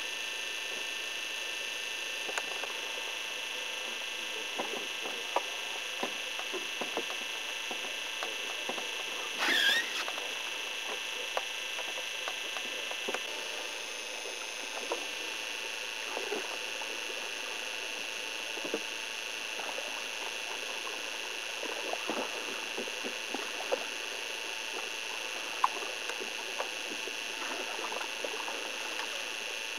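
Canoe paddling on calm water: faint, scattered paddle strokes and light knocks against the hull under a constant high-pitched whine. One brief louder sound with a rising pitch comes about ten seconds in.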